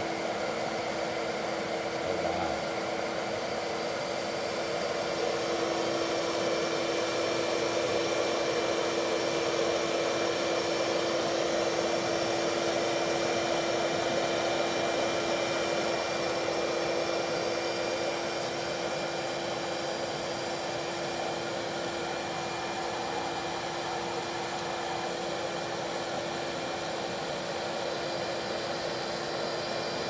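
Bee vacuum running: a steady motor hum with the hiss of air rushing through the hose as honey bees are sucked out of a birdhouse, a little louder in the middle.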